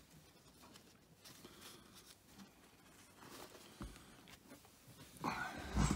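Faint rustling and light ticks of paper napkins being shuffled and handled on a stack, with a brief louder sound near the end.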